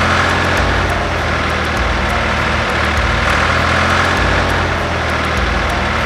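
Tractor engine running steadily: a loud, even engine sound effect with a rumbling low end.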